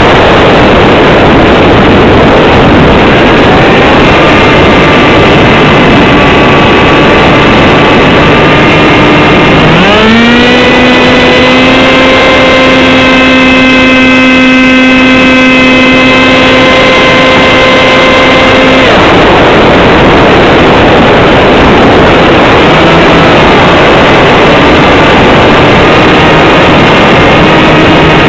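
Electric motor and propeller of a Z84 FPV flying wing whining under heavy, loud wind rush. About a third of the way in the whine climbs sharply in pitch as the throttle opens, holds steady for about nine seconds, then drops back to a lower, wavering tone.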